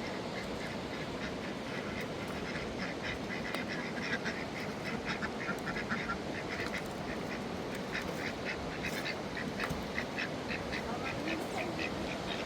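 Ducks quacking in quick runs of short calls over the steady rush of river water.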